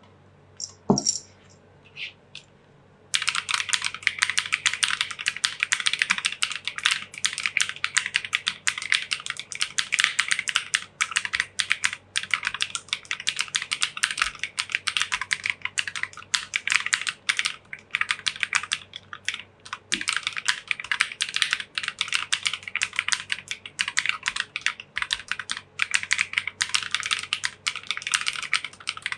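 Fast, continuous typing on a 60% mechanical gaming keyboard: a dense, irregular run of key clicks. It starts with a few scattered keystrokes and becomes steady typing about three seconds in.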